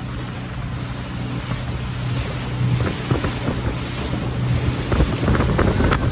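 Tour boat's motor running with a steady low hum, under wind buffeting the microphone and the rush of sea water, with brief splashes in the second half.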